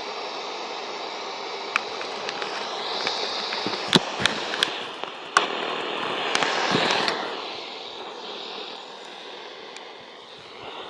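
Shortwave radio receiver hissing with static while tuned across the 31-metre band, with several sharp clicks and crackles about two to five seconds in and wavering whistles from signals passing through.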